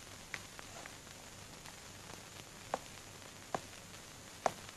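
Faint steady hiss of an old film soundtrack with a few light, sharp clicks scattered through it, the clearest a little after the middle and near the end.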